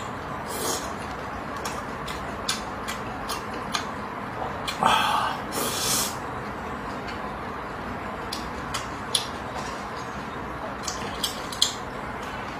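Wet mouth sounds of a person eating raw oysters in chili sauce: scattered short smacking clicks, with two slurps, one just after the start and a longer one about five seconds in, over a steady hiss.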